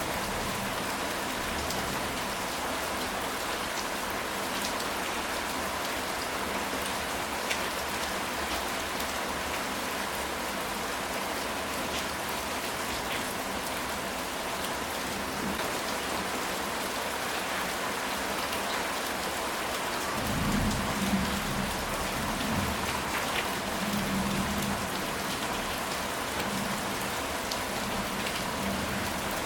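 Steady rain falling on a ceramic tile roof, with individual drops ticking. About two-thirds of the way through, a low rumble of thunder rolls for a few seconds.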